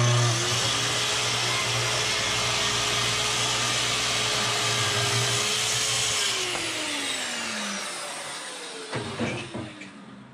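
Festool TS 75 track saw with its dust extractor running: the saw spins up, runs steadily through a cross cut in a small wooden block, and is switched off about six seconds in, its pitch falling as the blade winds down. The extractor's hiss fades more slowly, with a few knocks near the end as the saw is handled.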